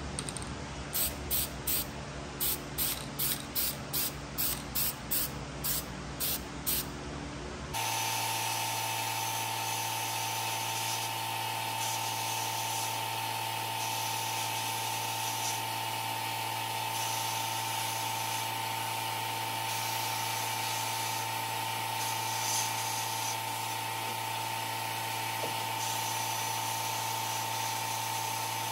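About a dozen short hissing bursts in quick succession. Then, suddenly, a small power tool runs steadily with a fixed whine.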